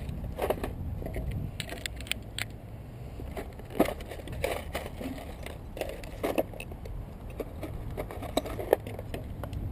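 Screws and bits clicking and rattling in a small plastic case as they are picked through by hand: scattered, irregular sharp clicks over a steady low rumble.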